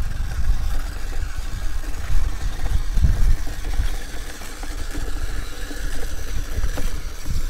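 Homemade RC car driving over a dirt track, its two high-speed geared DC drive motors running with a faint steady whine over a heavy, uneven low rumble.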